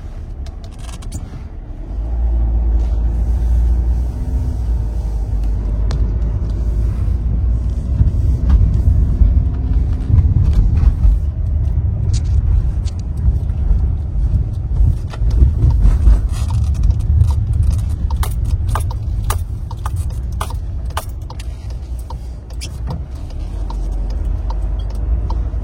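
Cabin noise inside a VW T6.1 bus driving over a bumpy, potholed road: a low rumble from the tyres and running gear, growing louder about two seconds in, with scattered short knocks and clicks as it goes over the bumps. The A-pillar trim no longer rattles, now that rubber strips are packed behind it.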